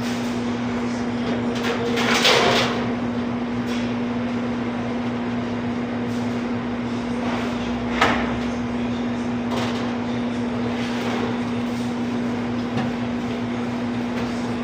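Steady machine hum with a constant low tone. A clunk comes about two seconds in and a sharp knock about eight seconds in.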